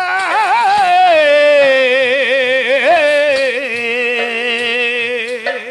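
Burrakatha singing: a single voice holds a long, wordless melodic phrase with heavy wavering ornaments. It steps down in pitch about two seconds in, drops a little again later, and fades out at the end.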